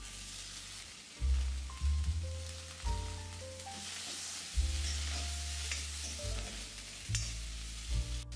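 Chopped vegetables sizzling and frying in a hot iron kadai as a metal spatula stirs them, under soft background music with a steady bass.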